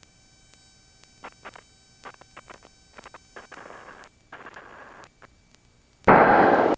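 Aircraft radio being tuned, heard through a headset intercom over a faint steady electrical whine: a run of small knob clicks, then two short patches of radio static. About six seconds in, a loud burst of hiss lasts just over half a second and cuts off sharply.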